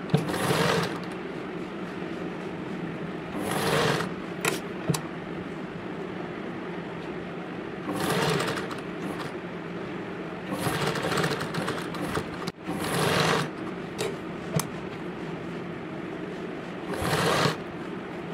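Domestic sewing machine stitching in six short runs of about a second each, with three sharp clicks between runs, over a steady low hum.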